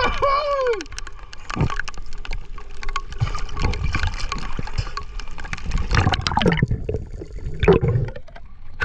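Water gurgling and splashing, with scattered small clicks and knocks, and a brief voice at the start.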